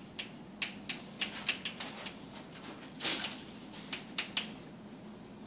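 Chalk writing on a chalkboard: a quick, irregular run of sharp taps and short scratches as letters are formed, with one longer scrape about three seconds in.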